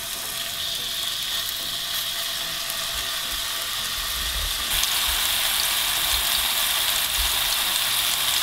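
Pork-and-chicken mince cutlets sizzling in hot sunflower oil in a frying pan, with small crackles. The sizzle grows suddenly louder about halfway through.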